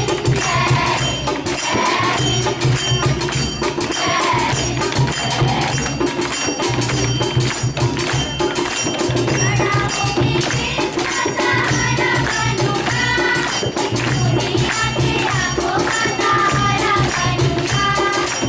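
Group of school students singing a Hindi patriotic song over a fast, steady beat of hand percussion.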